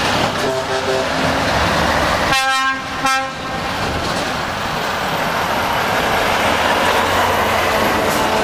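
Semi-truck tractor units driving past with their diesel engines running, sounding their air horns: short toots about half a second in, then a loud chord-like air horn blast about two and a half seconds in.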